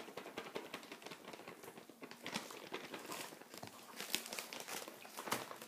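Hands kneading and squeezing sticky frosting-and-powdered-sugar slime in a bowl, making a run of small wet clicks and crackles as the dough sticks to and pulls away from the fingers.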